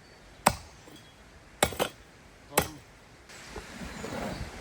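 Rocks knocking against other rocks: four sharp clacks in the first three seconds, two of them close together. Then a steady rush of flowing river water comes in.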